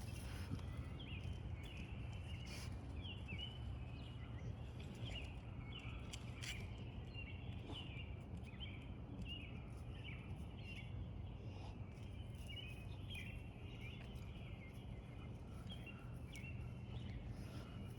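Small birds chirping, many short calls repeating over a low steady rumble.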